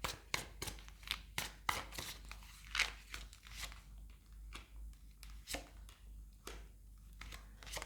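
Tarot cards being drawn and laid out on a table: a run of quick flicks, slaps and paper rustles, thickest in the first few seconds and then more spaced out.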